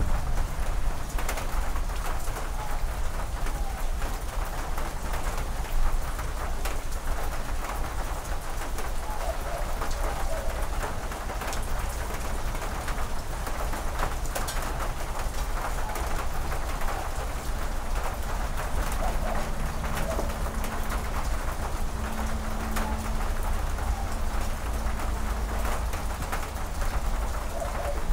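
Steady rain pattering on a corrugated metal porch roof and wet ground, with a low rumble underneath. A bird calls now and then, and a faint steady hum comes in during the second half.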